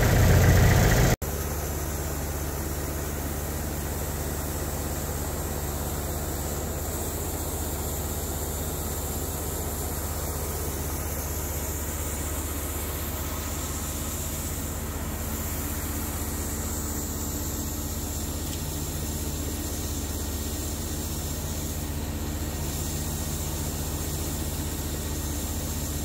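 An engine running steadily at one constant speed, a low even hum. It comes in after an abrupt cut about a second in.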